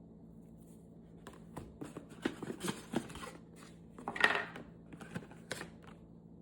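The box and contents of an Omnipod 5 kit being handled by hand: scattered small clicks, taps and rustles, with a louder scraping rustle about four seconds in.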